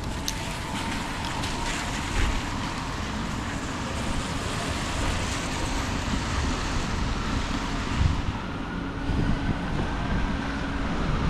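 City street traffic in the rain: vehicles passing with a steady hiss of tyres on wet road, over a low rumble of wind on the microphone.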